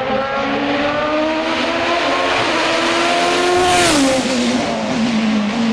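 Hill-climb race car accelerating flat out up the course, its engine note rising through gear changes, then passing close by about four seconds in with a sharp drop in pitch as it moves away.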